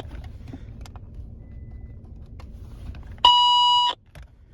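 Electronic beep from a 49 MHz handheld walkie-talkie: one loud, steady, buzzy tone lasting about two-thirds of a second, a bit over three seconds in, after a few seconds of faint low rumble.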